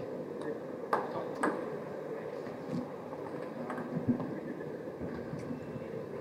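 Quiet hall ambience with a steady hum, broken by two sharp taps of a table tennis ball bounced on a bat or table about a second in and a few fainter taps later.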